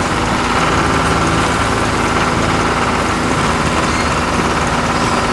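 Tractor engine running steadily under load while pulling a plow.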